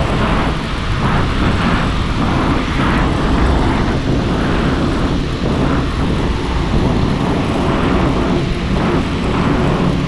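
Wind rushing and buffeting over the microphone of a moving bicycle, mixed with traffic noise from the road alongside.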